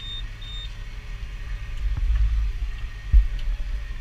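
Massey Ferguson tractor pulling a Hesston big square baler, heard as a steady low rumble. Two short high beeps come at the start, and a single heavy thump comes a little after three seconds.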